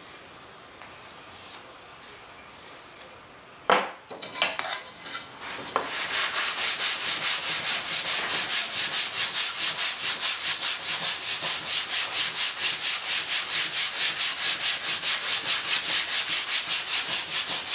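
Long hand sanding bar rubbed back and forth along the wooden edge of an RC jet's stabilizer, shaping its leading edge, in quick even strokes of about three to four a second from about six seconds in. A single sharp knock about four seconds in.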